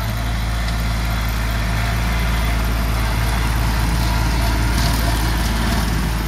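Kubota GB200 compact tractor's diesel engine running steadily under load, driving a rear rotary mower off its PTO shaft as it cuts through a tall green-manure crop. The sound grows a little louder as the tractor passes closest.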